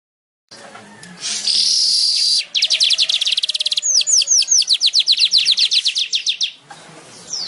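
Streaked weaver (manyar kembang) song: a buzzy hiss for about a second, then a fast dry rattle, then a run of quick down-slurred notes at about five a second that stops shortly before the end.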